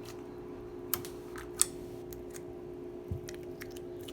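Glitter slime being squeezed and pulled apart by hand, giving scattered sharp clicks and pops, about seven in all, the loudest a little past one and a half seconds in. A steady low hum runs underneath.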